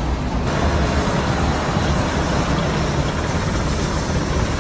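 Large Volvo wheel loader's diesel engine running steadily under work: a dense, continuous low rumble.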